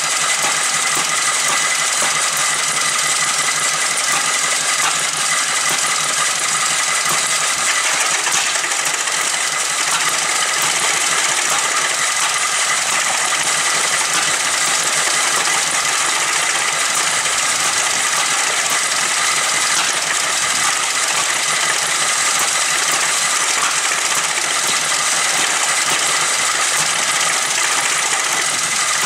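Aultman-Taylor 30-60 tractor engine running steadily at an even speed.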